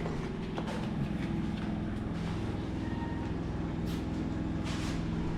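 A machine running steadily with a low, even drone, with a few light clicks now and then.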